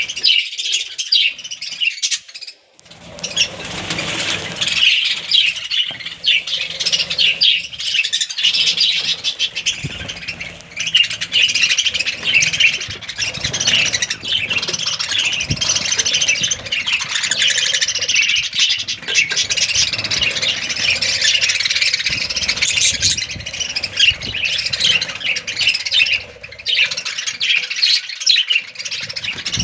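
Colony of budgerigars chattering, with many rapid high chirps overlapping without pause. The chatter drops out briefly about two and a half seconds in.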